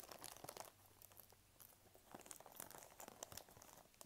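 Faint crinkling and scattered light clicks of costume jewelry and a plastic bag being handled while the pieces are sorted.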